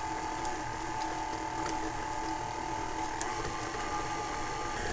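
KitchenAid stand mixer running steadily, its flat beater paddle mixing eggs, vanilla and molasses into creamed butter and sugar: an even motor whine with a few faint ticks.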